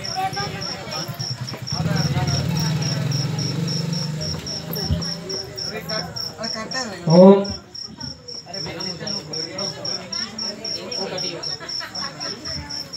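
A cricket chirping steadily, about four to five high chirps a second. A loud rising cry, the loudest sound, cuts in about seven seconds in.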